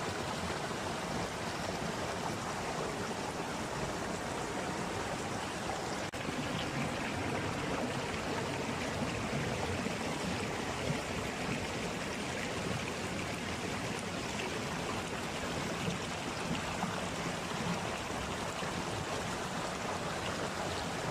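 Water of a wadi stream running, a steady unbroken rush of flowing water.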